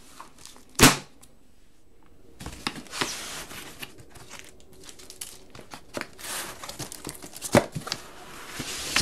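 Paper and cardboard rustling and scraping as they are handled, with a single sharp knock about a second in.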